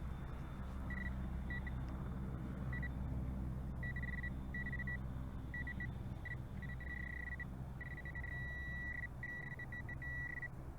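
Metal detector beeping at one steady high pitch, the beeps coming faster and running into a near-continuous tone as it closes in on a second buried coin. A low steady rumble runs underneath.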